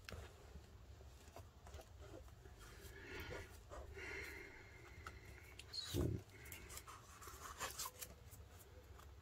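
Pages of a handmade art journal being smoothed flat and turned by hand: soft, scattered paper rustles and small clicks, with one dull knock about six seconds in.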